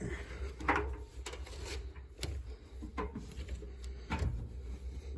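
Clothes being pushed by hand into a front-loading washing machine: fabric rustling and rubbing, with a few short knocks against the machine's drum and door opening.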